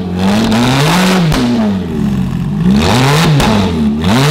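Sports car engine being revved hard several times, its pitch climbing and falling with each blip. It is loud.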